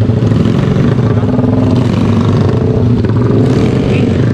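A motor vehicle's engine running steadily with a low, even drone.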